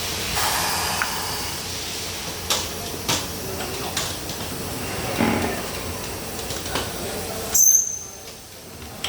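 Tyre changing machine working a low-profile tyre onto a rim: a steady hiss with a few sharp clicks and knocks, then a short loud hiss with a high whistle about seven and a half seconds in, after which the running noise stops.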